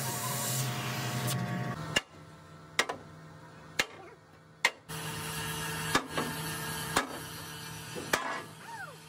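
A steady hiss with a hum cuts off about two seconds in. Then a hammer strikes steel in about seven sharp, separate blows, roughly one a second.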